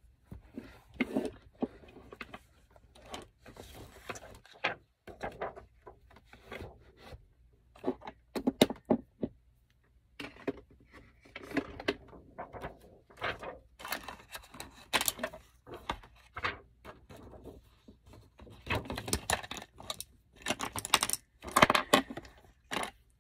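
Makeup products and their cases being handled and rummaged through: a run of short clicks, taps and rattles of small hard objects, in clusters with brief pauses between them.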